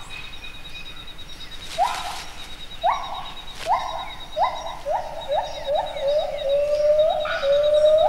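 Gibbon calling: a run of short rising whoops that come faster and closer together as the call builds, over a steady, fast-pulsing high buzz.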